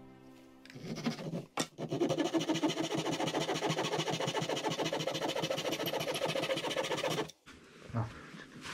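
Fast, even rasping strokes of a hand tool smoothing the edge of a thin board. They start about a second in and stop suddenly near the end.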